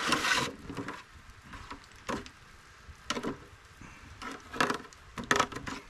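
Cooking utensils handled in a pan of melted butter and sauce while monkey bread dough is stirred in: a short rustle at the start, then a handful of separate light clicks and scrapes of spoon on pan.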